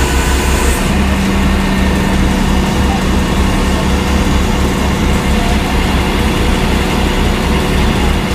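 A rollback tow truck's engine idling, a steady low throbbing with a constant hum above it.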